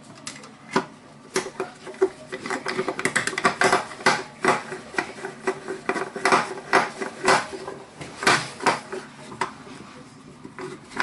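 Rapid, irregular metallic clicks and clinks of a hand tool working the brass pipe fittings of an electric water heater as they are tightened.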